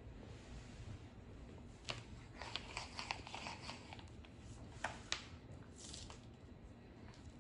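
A crayon scribbling on a large sheet of paper: faint bursts of scratchy strokes and light taps, with the paper rustling, starting about two seconds in and coming again a few times after.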